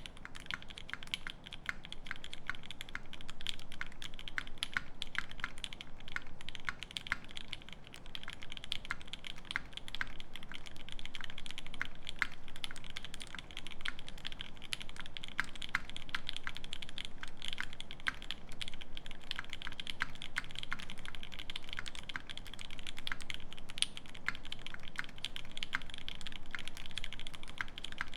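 Continuous typing on a Keycult No.1/60 brass mechanical keyboard with a brass plate, lubed C3 Banana Split linear switches and GMK doubleshot ABS keycaps: a dense, steady stream of keystrokes that starts suddenly at the beginning.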